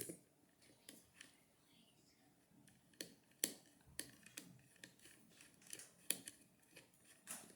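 Faint, irregular small clicks and ticks starting about three seconds in: a small screwdriver turning a tiny screw into a multimeter's battery cover.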